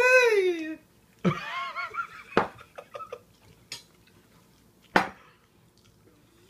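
A woman's pained cry without words, rising then falling in pitch, followed by whimpering sounds, as she reacts to the burning heat of a hot chili pepper. Two sharp knocks on the wooden table, about two and a half and five seconds in.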